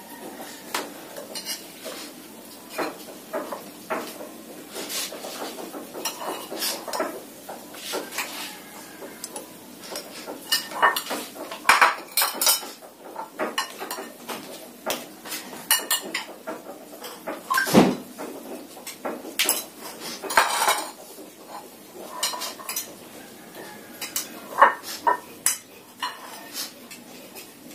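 Metal spoons clinking and scraping against ceramic plates and glass bowls as rice and side dishes are served and eaten: irregular light clinks, with a few sharper ones.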